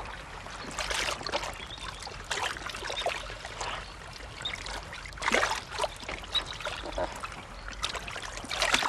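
Shallow sea water trickling and splashing among seaweed and rocks, with irregular small splashes that are a little louder about five seconds in and near the end.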